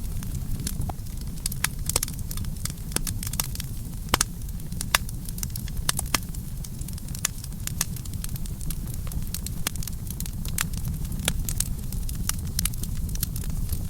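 Campfire burning: irregular sharp crackles and pops, several a second, over a steady low rumble of the flames.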